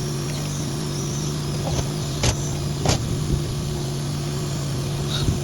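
An engine running steadily at a constant speed, with two sharp knocks about two and three seconds in.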